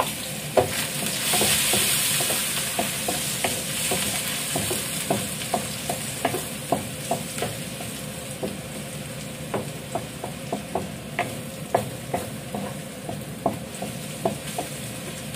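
Chopped garlic sizzling in hot cooking oil in a pan, stirred with a wooden spatula that knocks and scrapes against the pan many times.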